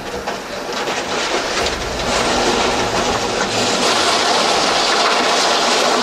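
Demolition debris breaking and falling: a dense, rattling, crunching clatter that grows louder about two seconds in and stays loud.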